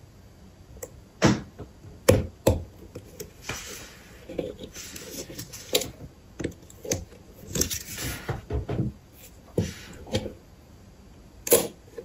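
Steel lock pick and tension tool working in a Winkhaus five-pin brass euro cylinder: irregular sharp metallic clicks and knocks, with stretches of scraping as the pick moves in the keyway.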